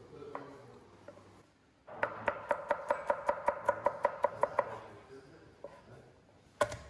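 Kitchen knife chopping garlic cloves on a plastic cutting board: a quick run of even taps, about six a second, for nearly three seconds, then a single knock near the end.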